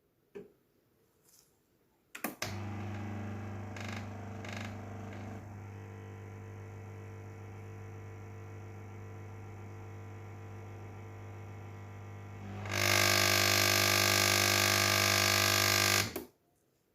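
Sage espresso machine's vibratory water pump buzzing steadily for about ten seconds. It then turns much louder and harsher for about three seconds before cutting off. This is the machine's fault sound: a small internal water pipe clogged with scale, with no water getting through.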